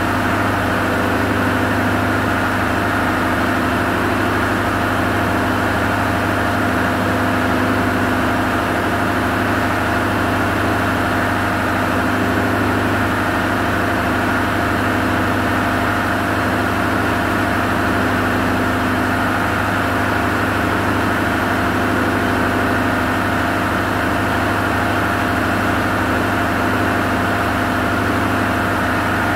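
Ship's diesel engine running steadily in the engine room: a loud, unchanging machinery drone with no rise or fall in speed.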